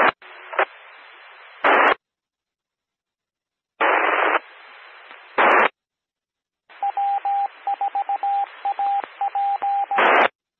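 Two-metre FM amateur radio repeater heard through a scanner: three brief unmodulated key-ups with faint hiss, each ending in a short loud burst of squelch-tail static. During the third, the repeater sends its Morse code identifier as a single beeping tone keyed in dots and dashes.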